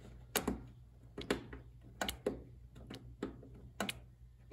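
Briggs & Stratton carburetor fuel solenoid clicking sharply about once a second, often in close pairs, its plunger snapping in and out under power. The solenoid had been sticking and, freshly lubricated, now works as it should.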